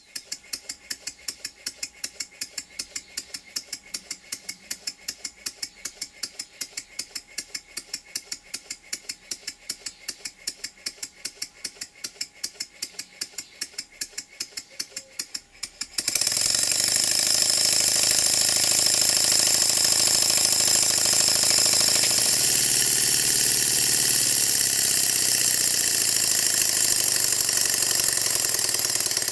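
Stuart 10V single-cylinder vertical model steam engine running on compressed air, its exhaust puffing in a quick even beat of about five a second. About sixteen seconds in, a sudden, much louder steady rush of air covers the beats until near the end.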